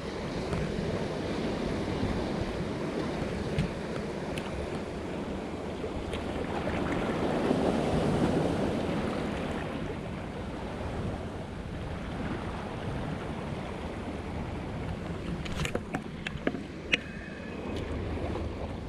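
Wind on the microphone over waves lapping at the shore, swelling about halfway through. Near the end come a few sharp clicks and knocks from handling the spinning rod and reel.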